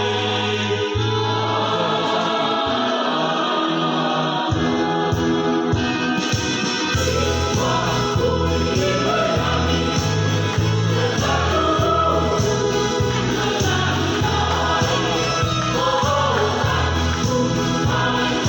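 Church choir singing a hymn in several-part harmony, with a low bass part that drops out briefly and comes back fuller about seven seconds in.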